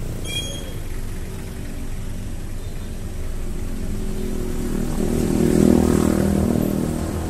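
Small motorcycle and scooter engines running in slow street traffic, heard from a riding motorcycle, with a passing motorbike's engine swelling louder about five to six seconds in. A brief high chirp sounds just after the start.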